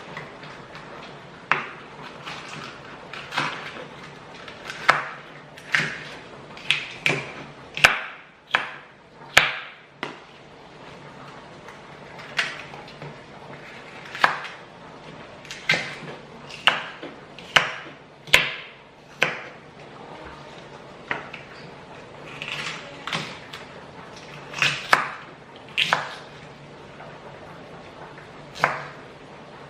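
Irregular sharp knocks of kitchen utensils during cooking, about one a second, each with a brief ring after it.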